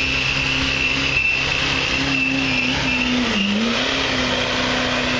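Duramax turbodiesel pickup engine held at high revs under heavy load while pulling the sled, with a steady high whine alongside. Its pitch sags briefly about three and a half seconds in, then recovers.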